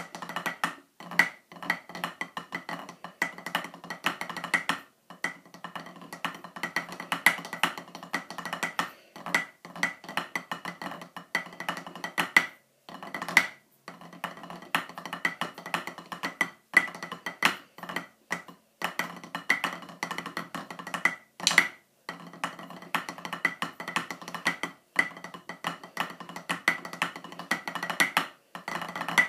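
Drumsticks playing fast rolls and rhythmic patterns on a wooden-rimmed rubber drum practice pad, with brief breaks about five, thirteen and twenty-one seconds in.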